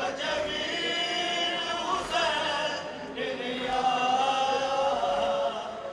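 Voices chanting a mournful Muharram lament (noha) in long held notes that slowly waver, with short breaths between phrases.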